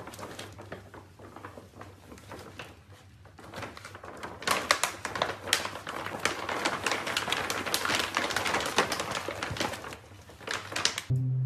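Plastic pet-food bag crinkling and rustling in quick crackles as white puppies burrow into and tug at it, busiest in the middle.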